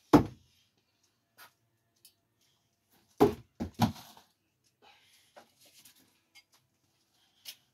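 Thrown screwdrivers striking a wooden target board: one hard thunk just after the start, then about three seconds later a second strike followed quickly by two more knocks. A few faint knocks and scuffs follow.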